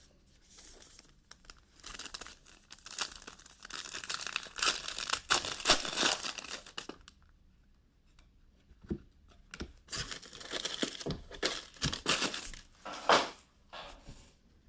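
Wrapping being torn and crinkled open on a sealed box of trading cards, in two spells of crackling with a short pause between them.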